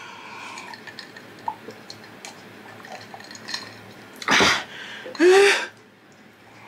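Two loud breathy bursts from a man's mouth and nose, a little over four and about five seconds in, the second ending in a short voiced 'haa'. Faint clicks of tableware sound between them.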